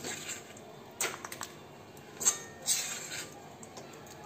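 Metal spoon scraping and clinking in an iron kadhai as a sticky jaggery and nut mixture is scooped out into a bowl: a quick run of small clicks about a second in, then two scraping strokes.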